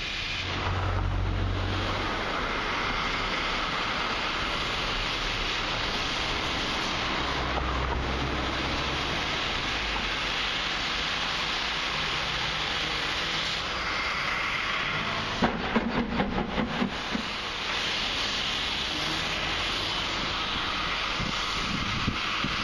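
Steam hissing steadily from an LMS Class 5 (Black Five) steam locomotive. A quick run of about seven sharp knocks comes about two-thirds of the way through.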